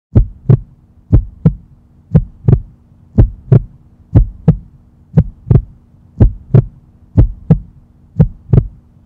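A heartbeat: pairs of low lub-dub thumps about once a second, a slow steady pulse, over a faint steady hum.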